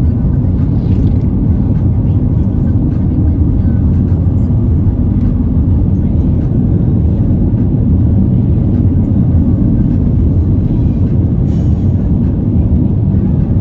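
Steady low rumble of a car's road and engine noise heard inside the moving car's cabin.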